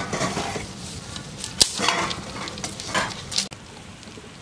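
Eggs sizzling in hot oil in the hollows of a clay pitha mould over a wood fire, with a few sharp clicks, the loudest about a second and a half in. The sizzle drops in level near the end.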